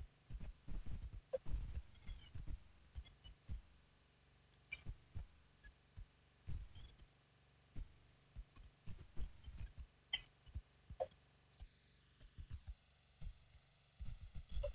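Wind buffeting the nest camera's microphone in irregular low thumps, with a few faint short high chirps in between.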